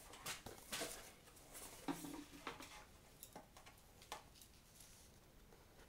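Faint rustles and light clicks of packaging being handled during an unboxing. A few scattered ticks come in the first half, then it grows quieter.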